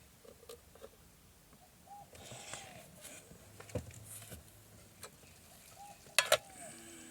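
The 12 V RoadPro roaster being handled to check the food: small scattered clicks and knocks, then one sharp, loud clack about six seconds in, typical of its metal lid or latch.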